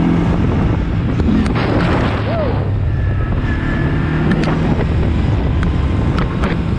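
ATV engine running at speed, with wind buffeting the microphone. Sharp clicks and knocks come in near the end.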